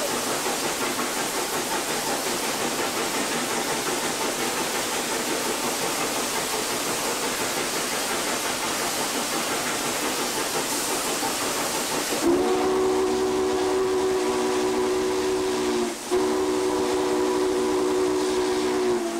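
Steady rushing noise of the N&W Class J 611 steam locomotive running, heard from its cab. About twelve seconds in, its three-chime whistle sounds a long chord. It stops briefly, then sounds a second long blast.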